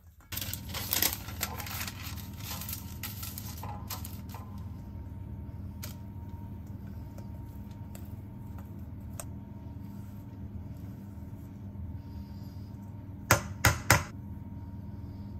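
Silicone spatula scraping and clicking against a stainless steel mixing bowl as thick cake batter is scraped out and poured, over a steady low hum. Near the end come three sharp knocks in quick succession.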